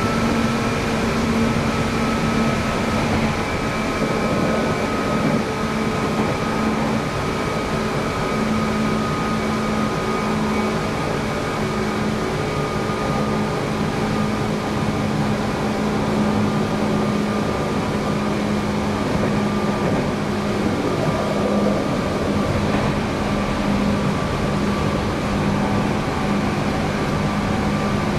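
Running sound of a Seibu 4000 series electric train, heard inside a passenger car: a steady rumble of wheels on rail under the whine of the traction motors and gears. The whine tones sink slowly in pitch.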